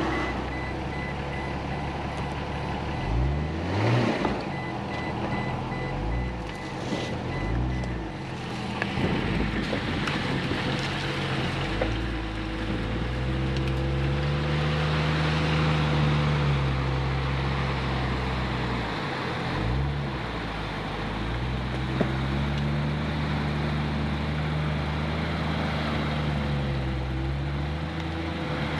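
Third-generation Toyota Tacoma pickup engine driving through mud and water on an off-road trail. It revs up and down in short bursts, then holds steady revs for several seconds at a time. A rushing noise of tyres and spray builds through the middle.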